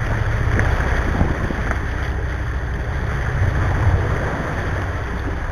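Wind buffeting the microphone and water churning along the hull of a sportfishing boat under way, over a steady low drone from the boat.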